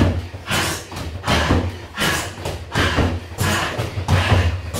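Boxing gloves striking a free-standing punch bag in a run of punches, about two hits a second.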